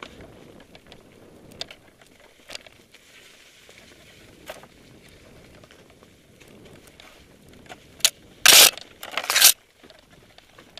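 Mountain bike ridden over a rocky, leaf-strewn singletrack: a steady rumble of tyres and the bike rattling, with scattered clicks, then a short run of very loud jolting clatter about eight to nine and a half seconds in as it rolls over rock.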